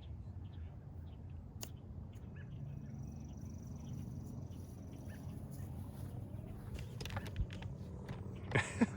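Outdoor ambience: a steady low rumble with scattered faint clicks, one sharper click about one and a half seconds in, a thin high tone lasting a few seconds in the middle, and a brief voice near the end.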